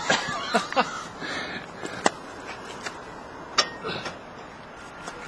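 Scattered knocks and clanks of weights being handled and loaded onto a motor test stand, the sharpest about two seconds in and another at about three and a half seconds.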